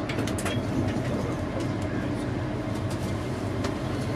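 Cabin noise of a Hitachi-built LNER Azuma train pulling away from a station platform: a steady low rumble with a faint steady hum and scattered sharp clicks.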